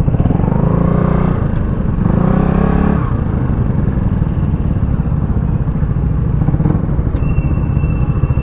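Motorcycle engine pulling up in pitch twice in the first three seconds as the rider accelerates, then running steadily at cruising speed with road and wind noise.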